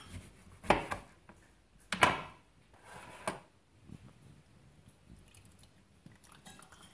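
A chef's knife cutting through a lemon onto a plastic cutting board: two sharp knocks of the blade on the board, then a smaller knock and faint handling sounds as the lemon half is squeezed.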